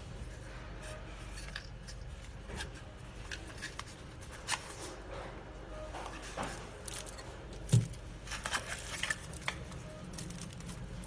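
Stainless-steel rebuildable dripping atomizer handled by hand: scattered light metallic clicks, taps and scrapes, with one sharper knock about eight seconds in, over a low steady hum.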